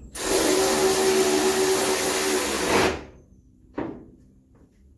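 A motor-driven shop tool runs with a steady whirring hiss for about three seconds, then cuts off suddenly. A single click follows.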